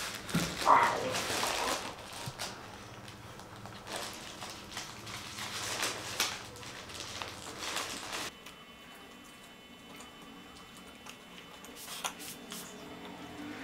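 Faint rustles and small clicks of a Labrador being hand-fed bread, with a brief higher-pitched sound about a second in. It goes quieter after about eight seconds.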